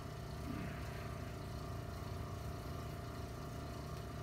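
Steady low mechanical hum of a motor or machine running in the room, with a faint constant tone above it.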